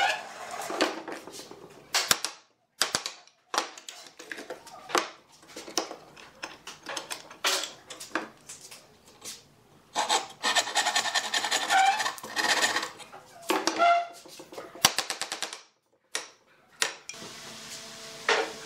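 Wooden frame saw cutting across a pine board by hand, in runs of quick back-and-forth strokes with short pauses between them. Near the end a chisel is set to the cut, with a couple of sharp knocks.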